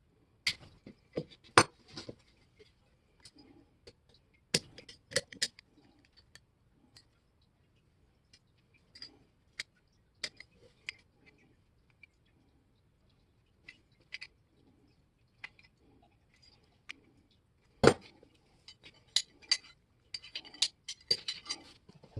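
Hand tools and metal parts being handled on a workbench: irregular sharp metal clicks and clinks with quiet gaps between them. The loudest knocks come about a second and a half in and again near 18 seconds, and a quick run of clicks follows near the end.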